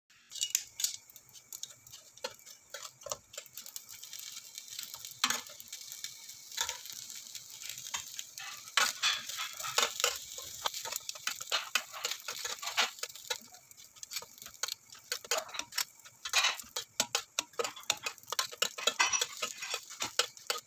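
Metal tongs clicking and scraping against a ridged grill pan as wrapped kebab sandwich triangles are turned and lifted, many quick irregular clicks over a steady sizzle from the pan.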